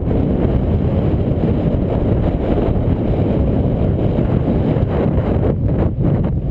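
Strong wind buffeting the microphone: a loud, steady low rumble, easing briefly a couple of times near the end.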